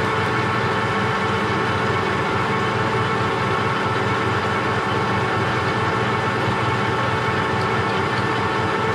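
Metal lathe running steadily at speed, with a steady whine of several tones from its drive, while it turns down a urethane wheel.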